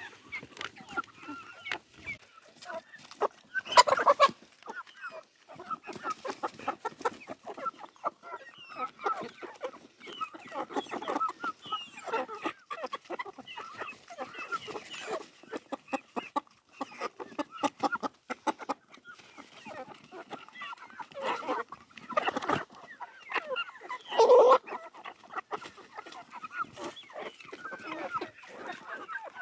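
Backyard chickens clucking and calling continuously, a flock of several birds, with a few louder squawking calls about four seconds in and again near the middle-to-late part.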